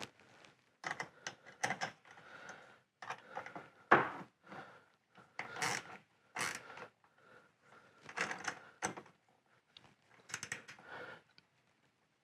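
Ratcheting box-end wrench clicking in short, irregular strokes, with light metal clinks from the bolt and bracket, as the bolt and locking nut are snugged down to hold the stabilizer bracket.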